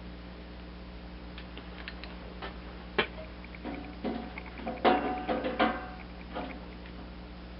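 Metallic clicks and clanks from a hand sheet-metal punch being adjusted and worked on the tin roof sheet: a sharp click about three seconds in, then a cluster of louder clanks with a brief metallic ring around five seconds in.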